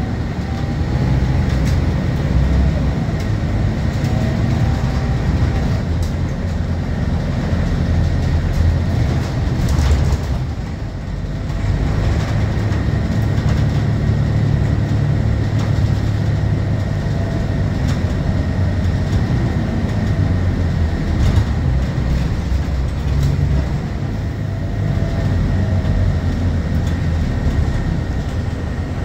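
Scania K230UB city bus under way, heard inside the cabin from the rear seats near its rear-mounted engine: a steady low engine drone with road noise and faint rising and falling whines. It drops briefly about eleven seconds in, then picks up again.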